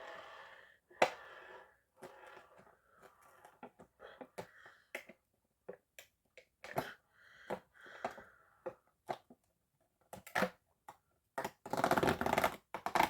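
Cardboard and plastic packaging handled and opened: scattered sharp clicks and taps with short rustling, crinkling stretches, the densest crinkling near the end.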